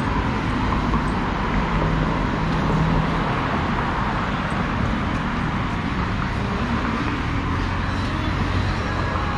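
Steady roadside traffic noise, with the low hum of vehicle engines running close by.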